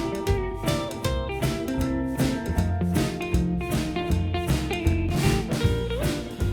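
Background music: plucked guitar over a drum kit with a steady beat, in a bluesy style.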